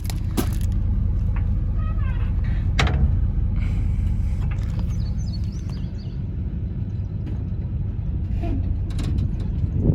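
A vehicle engine running steadily with a low rumble, and a single knock about three seconds in.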